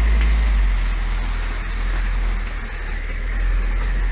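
Opel Frontera A Sport's engine running as the 4x4 drives slowly through tall weeds, heard from inside the cabin as a steady deep drone that dips slightly about two seconds in.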